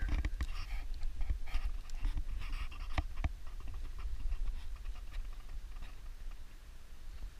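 Several dogs panting and snuffling at close range, in irregular rasps that ease off after about three seconds, with a few sharp clicks and a steady low rumble underneath.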